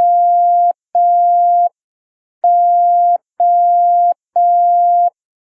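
Morse code letter O, dah-dah-dah, sent slowly as long beeps on one steady tone. Two long dashes finish one O, and after a short pause three more sound the O again.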